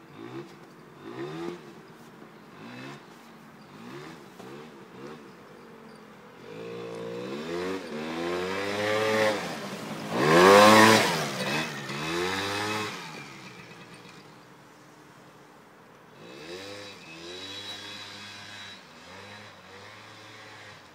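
Suzuki LT80 quad's small two-stroke single-cylinder engine revving up and down, faint and in short blips at first, then growing loud as the quad passes close by about ten seconds in and fading away. Fainter revving returns near the end.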